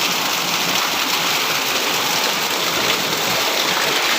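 Very heavy rain pouring down: a steady, dense hiss.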